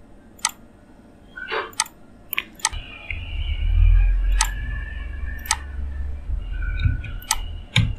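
Computer mouse clicking, about eight sharp single clicks at irregular intervals, over a low hum that comes in about three seconds in.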